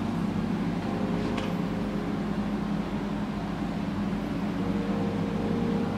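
Steady low mechanical hum with a few constant tones over a faint even hiss, the kind of hum that an aquarium hall's pumps and air handling give.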